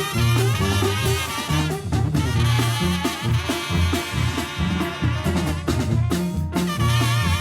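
Live Sinaloan banda music: brass instruments over a stepping tuba bass line, with drums keeping a steady beat.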